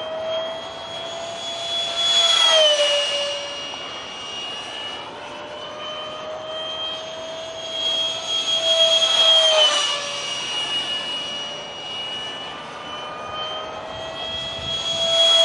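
Electric ducted-fan RC jet (70mm Detrum fan unit) whining steadily in flight, swelling and then dropping in pitch as it flies past, twice and again near the end.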